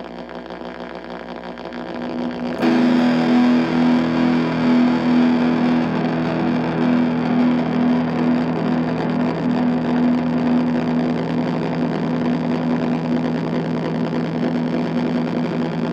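Distorted electric guitar, a Fender Jazzmaster with humbucking Fat Jazzmaster pickups through the ESI Transponder prototype pedal into a high-gain Orange Micro Dark amp: a ringing chord dies away, then a new chord is struck about two and a half seconds in and held, sustaining loudly.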